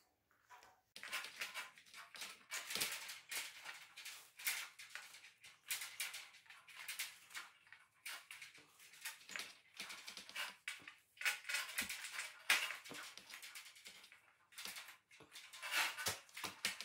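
Steel wire of a box spring being uncoiled by hand from the outer border wire: irregular metallic scraping and rattling of wire against wire and coil springs, starting about a second in.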